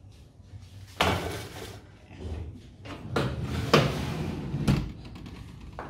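Metal handling at a stainless-steel oven: a scraping, rattling stretch about a second in, then sharp metallic knocks, and the oven door shutting with a heavy thump near the end.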